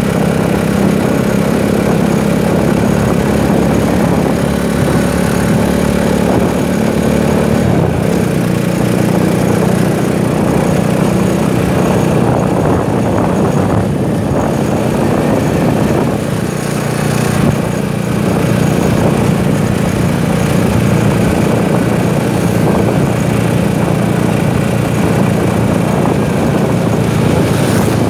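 A Rusi motorcycle's engine running at a steady cruise while riding, with a low, even hum under a constant rush of wind and road noise.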